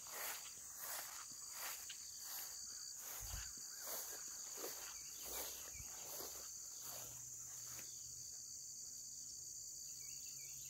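Insects chirring steadily in a high band, with faint footsteps swishing through tall grass and brush at about one and a half steps a second, which stop about eight seconds in.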